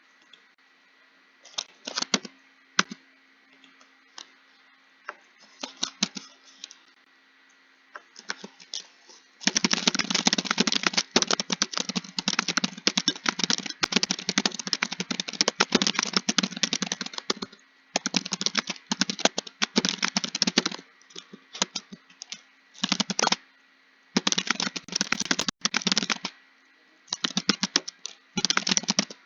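Typing on a computer keyboard: a few scattered keystrokes at first, then from about a third of the way in a fast, continuous run of keys that breaks into bursts with short pauses.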